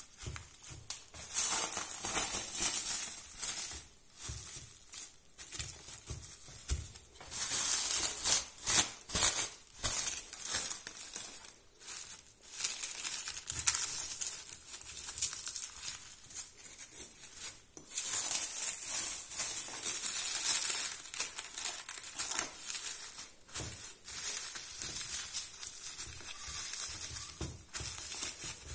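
Plastic cling film crinkling and rustling under hands pressing and smoothing it down over a cookie-layer cake, in irregular surges and short pauses.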